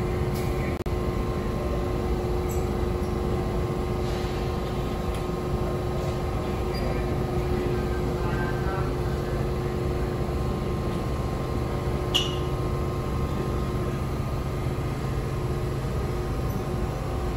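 Subway train standing at the platform with its doors open, its equipment giving a steady hum with several held tones, over the low noise of the station. A brief high-pitched chirp sounds about twelve seconds in.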